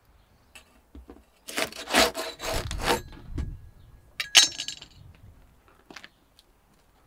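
Flatbread being scraped off the clay wall of a tandoor with a wire hook: a crackly scrape lasting about a second and a half, then a second shorter scrape and a few light clicks as the crisp crust comes away.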